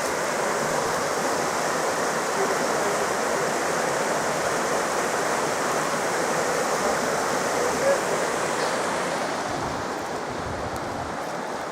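Forest stream rushing steadily, an even wash of running water that eases slightly near the end.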